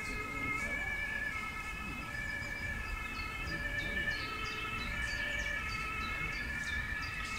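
Film soundtrack of several held high tones that shift in pitch every second or so, with short chirps repeating above them.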